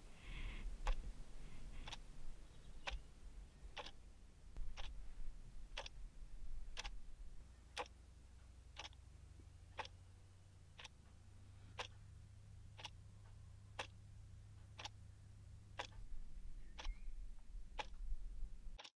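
Analogue alarm clock ticking steadily, about once a second, over a faint low hum.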